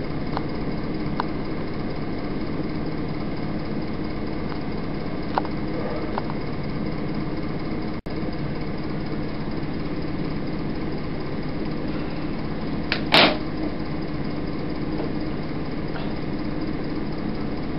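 Steady background hum and hiss of an old analogue video recording, with a few faint ticks, a split-second dropout about eight seconds in, and a short loud burst of noise about thirteen seconds in.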